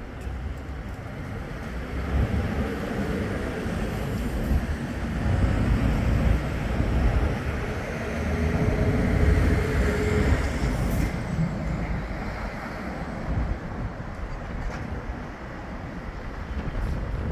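Road traffic rumbling past. A heavy vehicle swells to its loudest in the middle and then fades.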